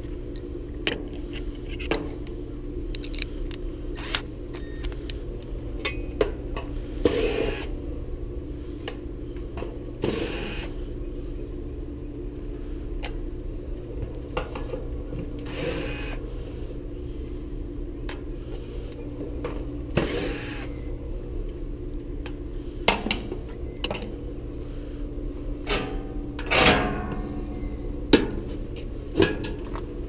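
Cordless drill-driver running in about five short bursts, backing out the screws of a heat pump's top fan grille, with sharp clicks of screws and tools on the metal cabinet in between. A steady low hum runs underneath.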